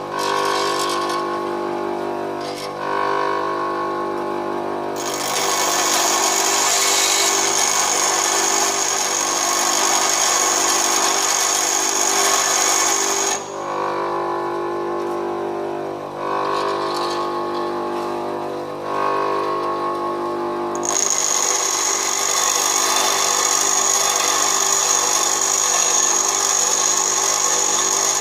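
Bench grinder running as a high-speed-steel lathe tool bit is pressed against the grinding wheel to form its cutting point. There are two long grinding passes, a harsh hiss with a high whine, from about five to thirteen seconds in and again over the last seven seconds. Between the passes the motor hums on its own.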